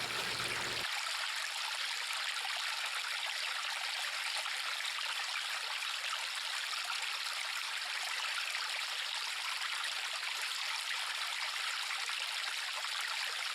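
River water flowing: a steady, even rushing and trickling.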